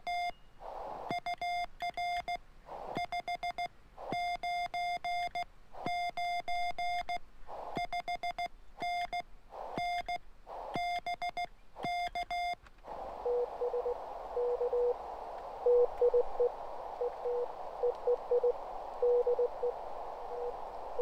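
Morse code on a 20-metre amateur radio transceiver: a clean, high keyed tone spelling out code in short and long elements. About 13 seconds in, the radio goes over to receive, a steady band of static with another station's lower-pitched Morse coming through it.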